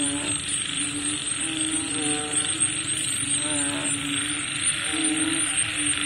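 Night chorus after rain: frogs calling in short repeated croaks over a steady, rapid high-pitched insect trill and a constant hiss.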